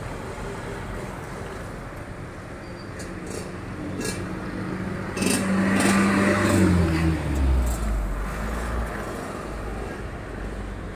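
Street traffic, cars and motorcycles driving past. About five seconds in, one vehicle passes close: its engine gets louder, then drops in pitch as it goes by.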